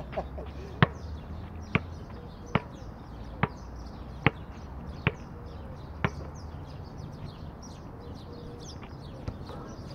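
A basketball being dribbled: seven bounces a little under a second apart, stopping about six seconds in. Birds chirp in the background.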